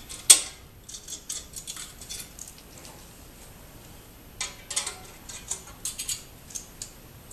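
Needle-nose pliers and steel exhaust springs clinking and clicking as the springs are pulled off a Ducati Diavel's exhaust joint. One sharp metallic snap comes just after the start, then scattered light clicks.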